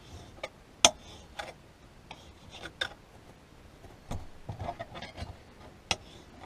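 Kitchen knife knocking and clicking against a cutting board while slicing raw chicken, in irregular sharp taps, the loudest about a second in and a quick run of softer ones around four to five seconds in.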